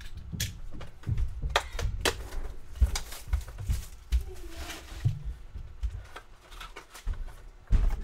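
Cardboard trading-card box being handled and opened on a table: a string of clicks, taps and low thuds, with some light rubbing.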